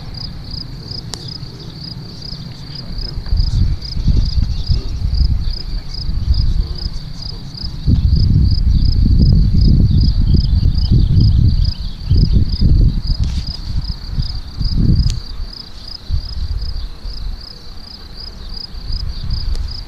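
A cricket chirping steadily and evenly, about two to three high chirps a second, over a low rumbling noise on the microphone that is loudest around the middle.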